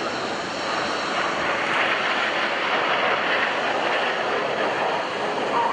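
Jet engine noise from a formation of BAE Hawk T1 jets flying past: a steady rushing noise that grows louder about a second in and holds, with a slowly sweeping hiss.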